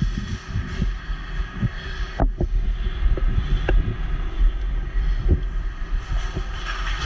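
Wind buffeting the microphone as a low, uneven rumble, with scattered sharp clicks and knocks.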